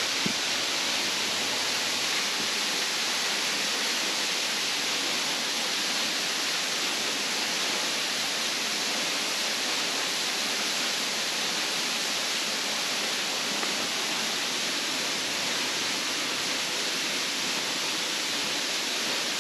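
Waterfall: the steady rushing of falling water, constant throughout.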